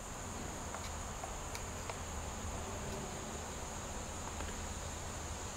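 Quiet room tone: a steady high-pitched electrical whine over a low hum, with a few faint light clicks in the first couple of seconds as a glass slide is handled and slid into the meter.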